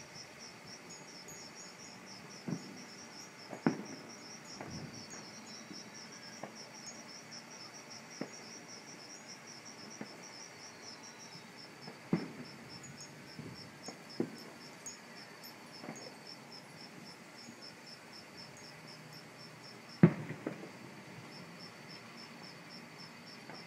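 Crickets chirping steadily, about four chirps a second, with a short break about halfway. Scattered distant fireworks go off as sudden low booms and pops, the loudest about twenty seconds in.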